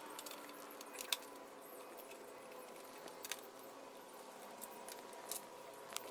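A few sharp, separate metallic clicks and clinks, spaced a second or more apart, from a screwdriver and small Torx screws being worked out of a plastic car center console.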